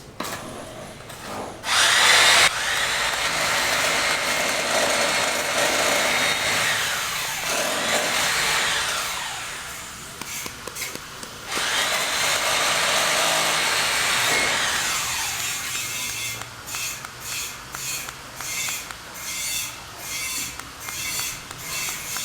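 A power tool motor spins up, runs with a steady whine and winds down, twice. Then come a series of short bursts, about two a second.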